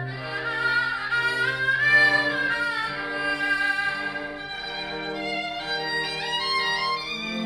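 Chamber ensemble of Western strings and Korean traditional instruments playing: a high bowed melody with wavering, sliding pitches over a low held cello note that dies away about three seconds in.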